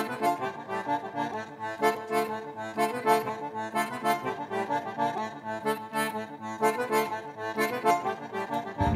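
Instrumental passage of a live band song, led by an accordion playing a quick run of notes with the band behind it, about four notes a second. Near the end it cuts suddenly to a much louder sound.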